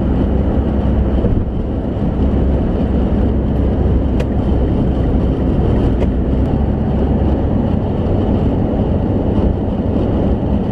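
Steady road and engine noise inside the cabin of a car moving along a road.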